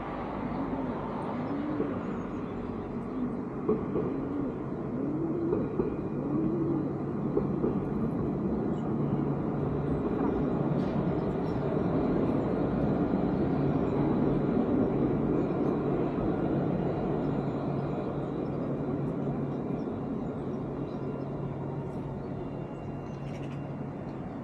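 Tram passing over the road bridge: a steady low hum and rumble that builds, peaks about halfway through, then slowly fades.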